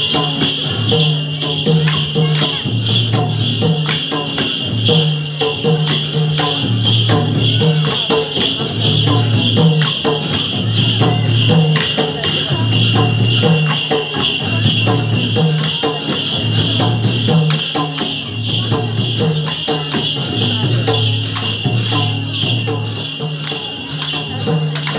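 Newar bansuri band music for a stick dance: a drum beats a repeating low pattern, bright jingling sounds on every beat, and a high, held flute tone runs above.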